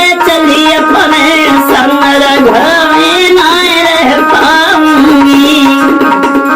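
Music: a wavering, ornamented melody line over steady held notes.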